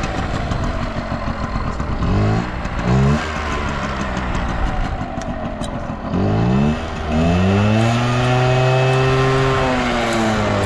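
Yamaha Passol D S50D scooter's small two-stroke engine running, revved in two short blips and then held at a steady higher speed for a couple of seconds before dropping back. It runs without abnormal noise.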